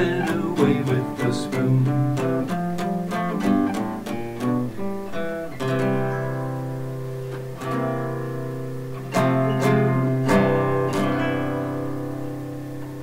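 Acoustic guitar played solo: quick picked notes for about the first five seconds, then a few strummed chords, each left to ring and fade away.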